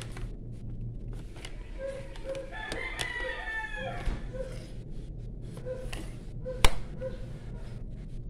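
A rooster crowing once, about three seconds in, with short chicken clucks recurring throughout. A single sharp click near the end, over a steady low hum.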